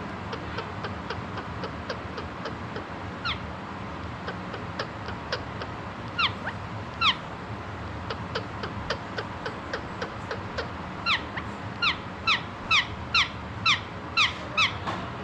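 Indian ringneck parakeet making short, falling chirps: a quick string of faint ones, then a louder series of about two a second near the end.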